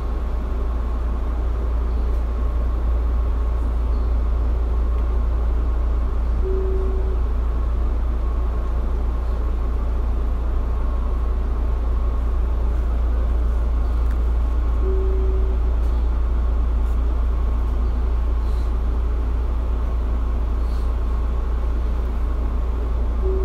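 Steady low hum of a Tobu 9050 series electric train standing at an underground platform, its equipment running while it waits, with a faint steady whine above. A short mid-pitched tone sounds about every eight seconds.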